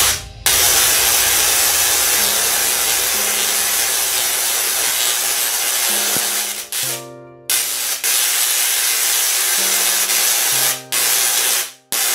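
Spark-gap Tesla coil powered by two 6 kV neon sign transformers running: a loud, steady hiss of the spark gap firing and the streamers discharging, broken by short pauses about halfway through and near the end.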